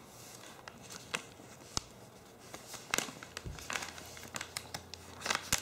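Plastic Greenies dog-treat pouch crinkling as it is handled: faint, scattered crackles that grow busier near the end.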